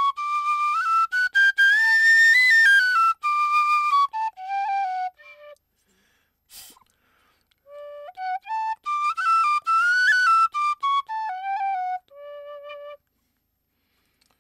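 3D-printed modular penny whistle (Qwistle) played in runs of notes stepping up and down the scale, two phrases with a short pause about halfway. Its windway is only push-fitted and leaks a little air, so the tone is not yet clean and the tuning not quite set.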